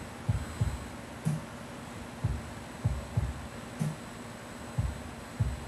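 Soft, low thumps, often in close pairs, recurring every half second to a second over a faint steady room hum.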